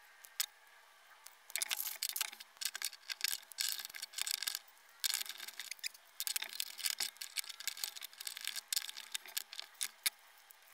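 Hand work on electrical wire: irregular small snips, clicks and scrapes as the 12-gauge wires between two outlets are cut and stripped with wire strippers and clamped into WAGO lever-nut connectors.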